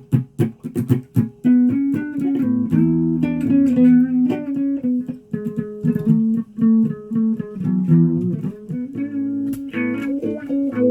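Guitar being plucked: a loose, unevenly timed run of single notes and short clusters of notes, each ringing briefly before the next.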